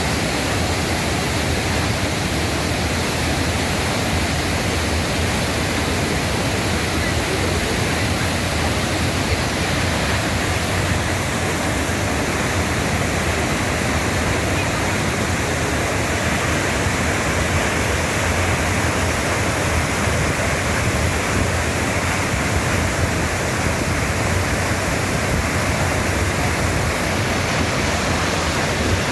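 Waterfall in a mountain valley stream, a loud, steady rush of falling water with no change throughout.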